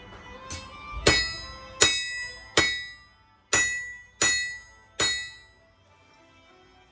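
Hand hammer striking a rebar knife blade on an anvil: six loud blows about three quarters of a second apart, each ringing out as metal, stopping about five seconds in.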